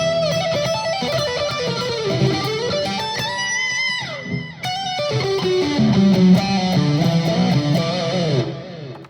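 Electric guitar played through a Korg Tone Works AX3000G multi-effects unit on its lead tone, a single-note melodic line with bends and slides. It fades out just before the end.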